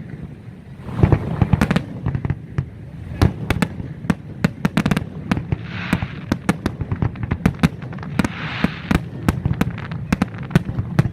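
Aerial fireworks display: a rapid, irregular run of bangs and cracks from shells bursting overhead, with two brief stretches of hiss about six and eight and a half seconds in.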